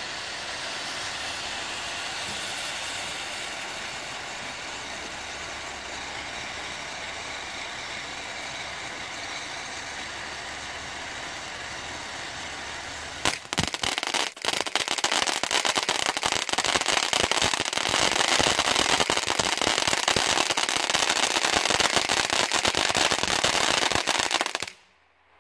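Two Keystone firework fountains burning, a steady hiss as they spray sparks. About thirteen seconds in come a few sharp pops, then a louder, dense crackling for about ten seconds that stops abruptly near the end.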